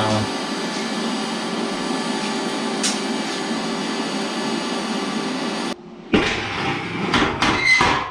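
A small electric motor running steadily with a whirring noise and a faint whine, cutting off suddenly about six seconds in; a few irregular knocks and clatters follow.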